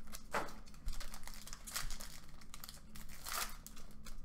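Foil trading-card pack wrapper crinkling and tearing as it is handled and opened by hand, in several short irregular crackles.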